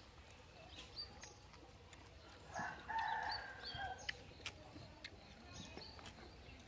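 A rooster crowing once near the middle, a steady call lasting about a second, over small birds chirping repeatedly in the background.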